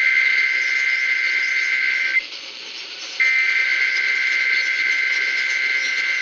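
Emergency Alert System SAME header data bursts: a harsh two-tone digital screech received over the radio. One burst cuts off about two seconds in, there is a second of radio hiss, and the next burst starts about three seconds in.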